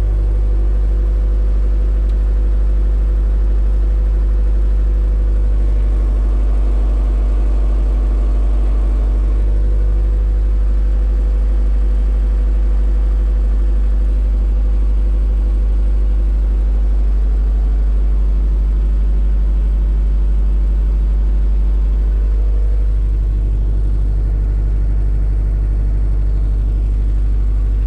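Bobcat Toolcat 5610's diesel engine idling steadily, heard from inside its cab.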